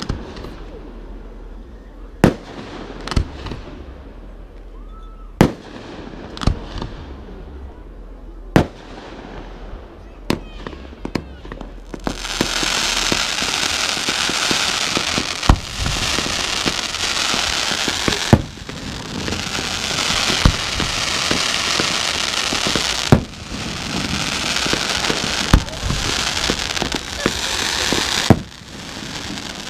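Fireworks display: single shells go off with sharp bangs every second or two. About twelve seconds in, a dense, loud hissing crackle sets in, with further bangs over it.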